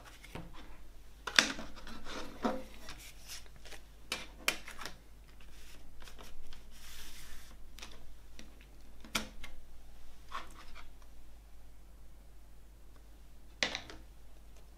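Plastic CD jewel case being handled and opened on a table: a series of sharp plastic clicks and snaps, with rubbing and sliding of plastic and paper in between.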